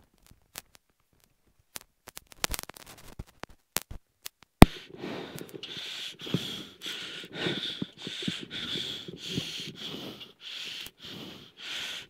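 Work during a mid-stage roadside tyre change on a rally car: scattered clicks and knocks, one sharp click about four and a half seconds in, then a steady rhythmic noise about twice a second.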